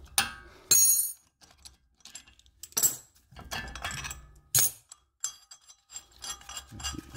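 Metal tools clinking and clanking as a two-jaw bearing puller and open-end spanners are shifted against the wheel hub: several separate sharp metallic knocks, one ringing briefly about a second in.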